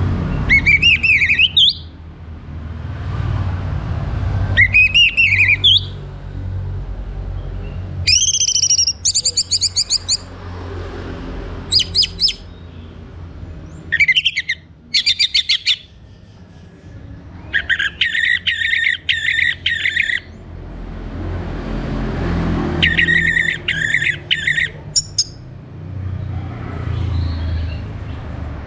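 Orange-headed thrush singing: about eight loud phrases of whistled, sliding notes with pauses of a second or two between them. Some phrases are fast runs of repeated notes. A low steady rumble sits underneath.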